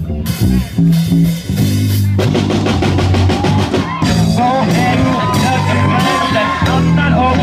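Live band playing funky rock: drum kit, bass guitar and electric guitar through amps, the full band coming in more densely about two seconds in.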